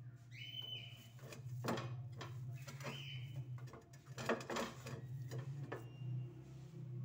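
Dough being kneaded by hand in a clay bowl: soft squishes and several dull knocks as the dough is pressed and turned against the terracotta, over a steady low hum.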